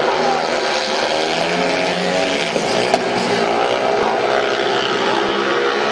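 Several speedway bikes racing, their single-cylinder methanol-fuelled 500cc engines running hard together, rising and falling in pitch as the riders throttle on and off through the bends.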